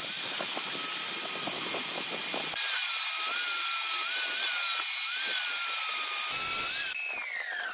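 Angle grinder with a sanding disc running against wood spinning on a lathe: a steady, wavering whine over the hiss of sanding. Near the end a motor whine falls in pitch as it winds down.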